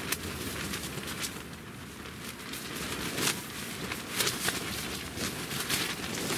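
Loose fabric wall of a canopy tent flapping and slapping in gusty wind, with irregular sharp snaps over rushing wind noise. The wall lifts and flaps where it meets the mosquito net, leaving a wide gap.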